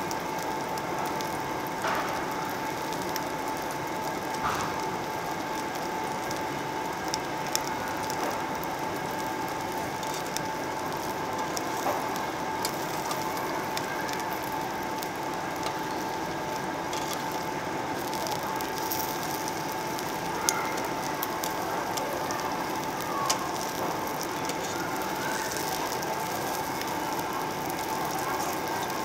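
Samgyeopsal (pork belly) sizzling steadily on a perforated steel tabletop grill plate, with a few sharp clicks of metal tongs against the plate. A steady faint hum runs underneath.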